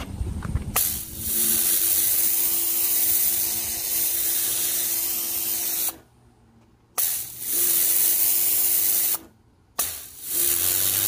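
Kärcher K3.91 electric pressure washer blasting a water jet onto concrete in three bursts: a long one, then two shorter ones, each with a loud hiss and a steady hum from the pump motor. Both stop together in the short gaps when the trigger is released.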